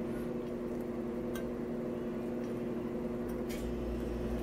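Steady machine hum with two constant tones, and two faint clicks, one about a second in and one near the end.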